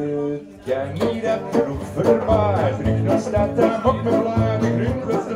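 Live acoustic band in an instrumental passage: a held note ends just after the start, and after a short break the acoustic guitars come in with quick picked lead notes over strummed chords.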